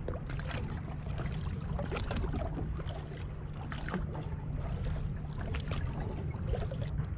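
Small boat drifting on open water: a steady low rumble with scattered light clicks and knocks.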